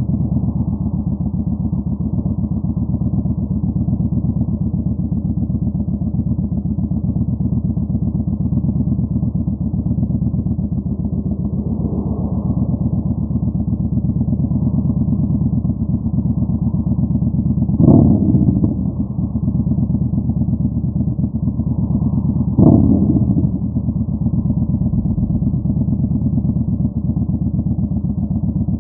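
Yamaha Bolt 950's V-twin engine running through a Vance & Hines Twin Slash staggered exhaust, a steady low-pitched beat. Twice, about two-thirds of the way through, it briefly gets louder.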